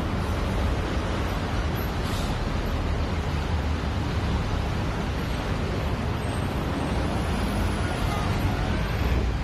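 Steady road traffic on a busy multi-lane road: buses and cars passing, a continuous deep rumble with tyre and engine noise.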